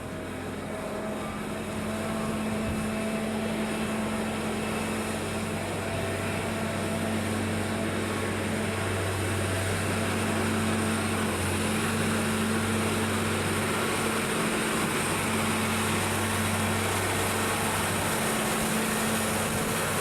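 Case IH 9380 tractor's diesel engine running steadily, with an even low hum.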